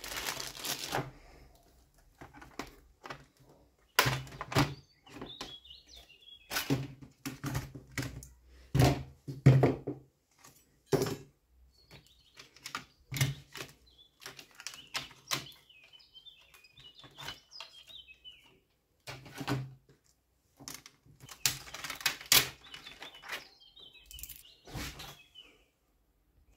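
Hands working on an opened laptop: plastic packaging crinkling at the start, then scattered clicks, taps and knocks as small parts, connectors and screws are handled and set down on the chassis. Short chirps come in now and then behind them.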